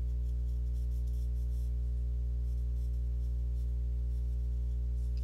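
Faint scratching of a pen drawing on paper, mostly in the first couple of seconds, over a steady low hum.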